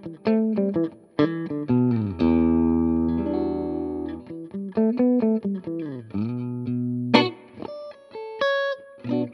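Electric guitar played through a Tone King Gremlin tube amp: a lead phrase of picked single notes and held, sliding notes, ending in a quick climbing run of high notes.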